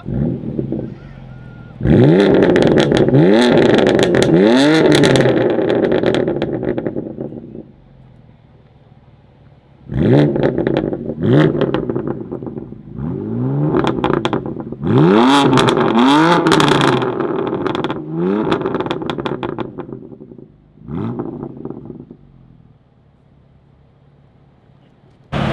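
BMW M4 F82's twin-turbo straight-six with a full Akrapovic titanium exhaust revving hard, in two loud runs of quick rising sweeps, with sharp crackles among them. A short blip follows near the end, then it drops away to quiet.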